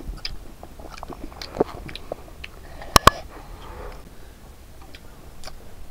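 Close-up eating sounds: children biting and chewing chunks of pineapple, with light scattered clicks and two sharp clicks in quick succession about three seconds in.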